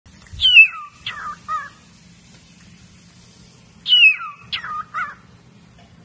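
A white parrot giving harsh calls in two bouts. Each bout is a loud screech falling in pitch, followed by two shorter calls.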